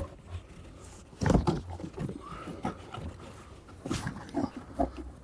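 Pleated cabin air filter being bent and pushed into its plastic housing: irregular scraping and rustling of the filter against the plastic, with louder knocks about a second in and again near four seconds.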